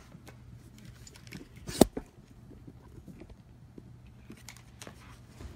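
Handling noises: one sharp click about two seconds in, with fainter ticks and rustles, over a low steady hum.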